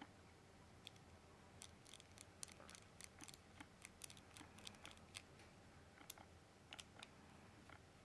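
Faint, irregular metallic clicks and ticks as a precision screwdriver turns a tiny screw in the steel button housing of a Peacemaker vape mod, the tip catching and slipping in the screw slot.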